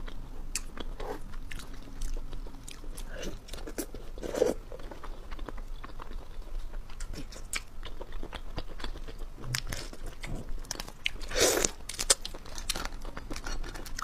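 Close-miked crunching, cracking and chewing as cooked hermit crab shell is pulled apart by hand and bitten: a run of small clicks and crackles, with two louder crunches, about four and a half seconds in and again near twelve seconds.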